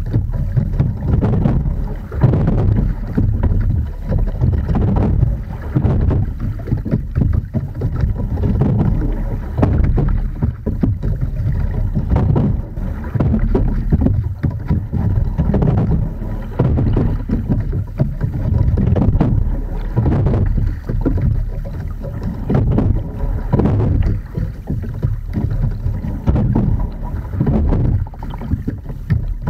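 Edon TS515 single scull being rowed: water rushing along the hull and wind buffeting the microphone make a loud, gusty low rumble, with occasional knocks.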